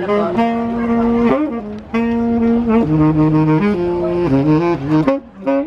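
Saxophone played solo as a slow melody: long held notes at first, then a lower phrase stepping between notes, with a short break near the end.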